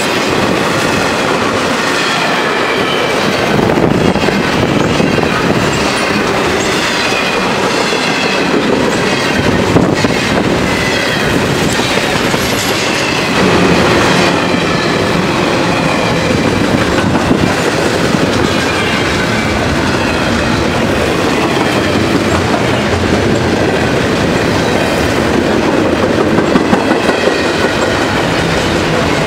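CSX double-stack intermodal freight train's container well cars rolling past at speed: a loud, steady rumble and clatter of steel wheels on the rails, with wavering high squeals from the wheels now and then.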